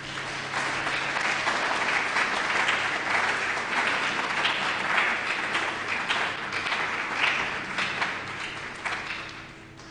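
Audience applauding: the clapping swells within the first second, holds steady, and dies away near the end.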